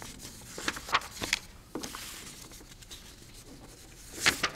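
Sheets of paper being handled and shuffled close to a microphone: a few crisp rustles and clicks about a second in, and a louder cluster near the end.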